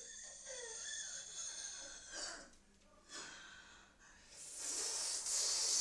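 A person making spooky monster noises: drawn-out, breathy hissing vocal sounds, ending in a loud, sharp hiss near the end.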